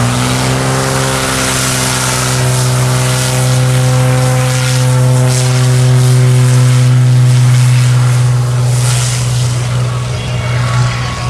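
Light single-engine piston airplane opening up for its takeoff roll: the engine and propeller climb in pitch over the first second, then run steadily, weakening near the end.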